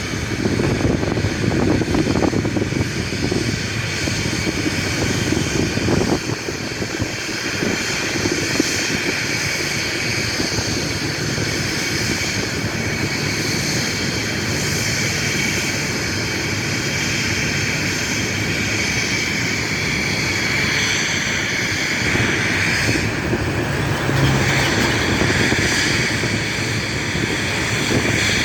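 CFM56-7B turbofan engines of a Boeing 737-800 running: a steady jet rush with high-pitched whine tones over it.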